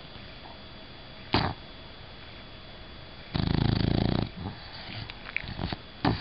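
Sleeping bulldog snoring: a short sharp breath about a second in, then one loud snore lasting about a second in the middle, followed by smaller snuffles and another short breath near the end.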